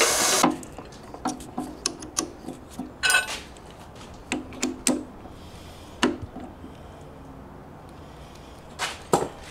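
A loud machine noise cuts off abruptly about half a second in. Then come scattered metallic clicks, taps and knocks, with a brief ringing clink about three seconds in, as a twist drill is fitted and tightened into a drill press's chuck.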